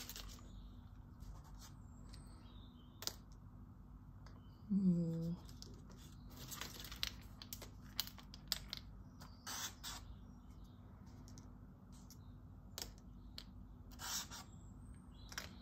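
Faint, scattered clicks, rustles and scrapes of dry leaves and marker pens being handled on a table, ending with a marker pen drawing on sketchbook paper.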